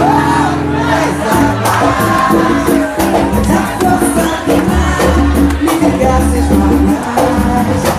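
Live band playing: electric bass and acoustic guitar with steady rhythmic percussion, and a voice singing over them, heard from among the audience.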